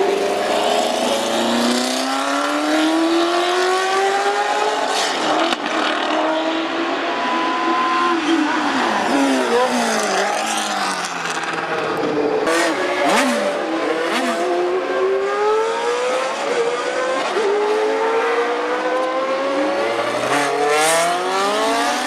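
Historic Formula One racing engines running hard as cars accelerate and pass one after another: the pitch climbs through the gears with short breaks at each upshift and drops away as each car goes by. A few sharp sudden noises come out over the engines, around the middle and near the end.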